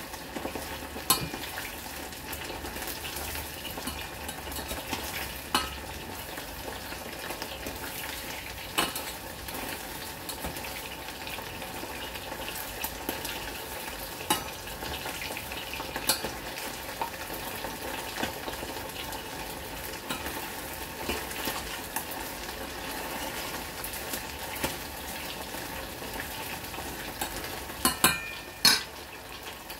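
Pork ribs deep-frying in a stainless steel saucepan of oil, a steady sizzle, with sharp metal clinks of tongs against the pot every few seconds, the loudest two near the end.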